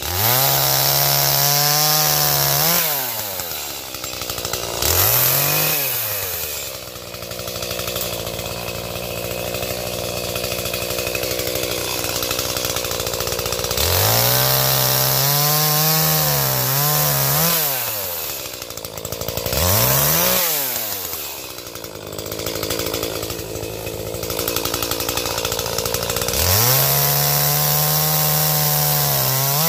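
Chainsaw cutting firewood. It revs up to full throttle and holds there about three times, dropping back between, with longer stretches of steadier, lower running in between.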